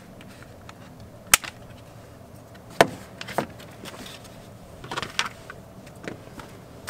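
Sharp clicks and knocks from a van's plastic door trim and tweeter being handled, the sharpest about a second in, then two near three seconds and a small cluster near five seconds.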